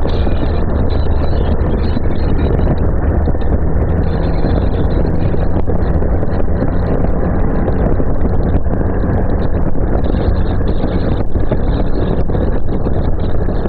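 Motorcycle engine droning steadily at cruising speed, mixed with wind rushing over the rider's microphone.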